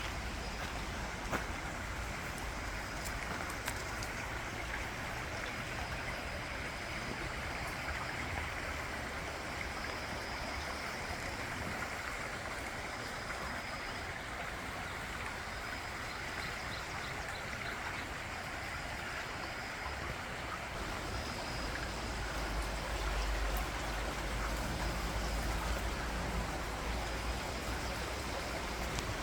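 Steady rush of a forest stream, with short high bird notes repeating faintly every few seconds. A low rumble grows in the last third.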